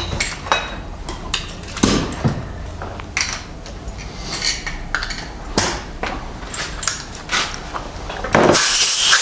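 Small metal tools clinking and tapping against the bare metal parts of a stripped-down outboard motor, in short, scattered clicks. Near the end a loud, steady blast of compressed air starts, blowing the parts clean.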